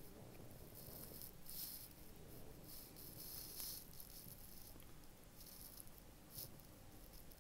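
Near silence: quiet room tone with faint, irregular soft rustling and scuffing sounds, about one a second, from someone walking with the camera.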